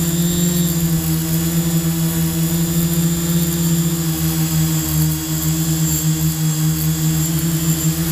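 Quadcopter drone's electric motors and propellers running at a steady pitch in flight.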